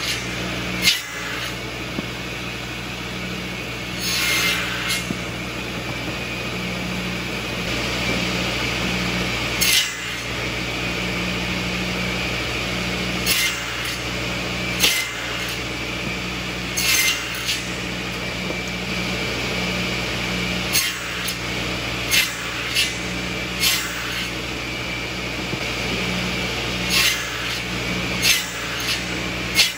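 Balfour Samurai buzz saw running steadily as sticks of firewood are fed through it and cut into smoker chunks. A short, sharp cutting noise comes every one to three seconds over the machine's steady hum.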